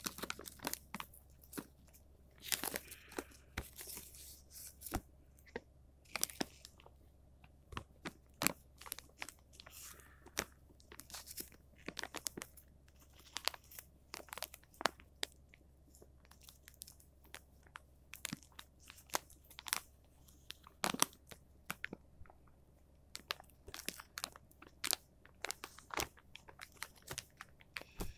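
Plastic food packaging crinkling and crackling as it is handled and pulled open, a dense run of sharp crackles and rustles.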